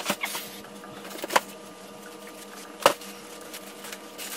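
Cardboard box and plastic mailer packages being set down and handled: three short knocks and crinkles about a second and a half apart, over a faint steady hum.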